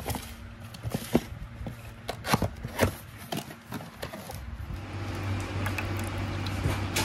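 Cardboard box of a pet water fountain handled and opened, with sharp crinkles, taps and flap rustles. About four and a half seconds in, a steady low hum and trickling water begin as the fountain's pump runs and water pours from its spout into the bowl.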